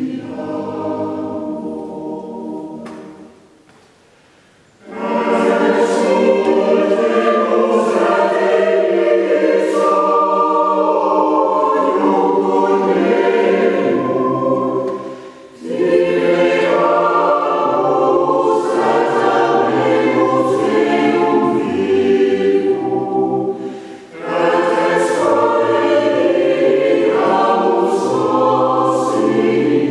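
Mixed choir singing a cappella in long sustained phrases, with a near-silent pause about four seconds in and short breaks between phrases near the middle and later on.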